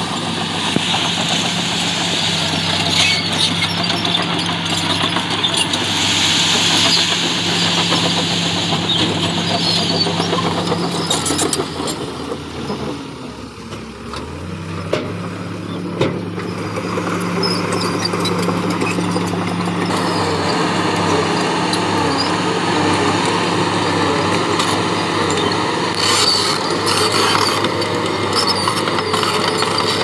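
Dump truck's heavy diesel engine running steadily, with a hiss over it. The engine drops off briefly about halfway through and then picks up again. A few sharp clanks sound near the end.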